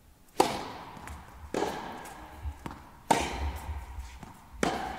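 Tennis rally in an indoor hall: four racket strikes on the ball, about a second and a half apart, each echoing in the hall, with a fainter click between two of them.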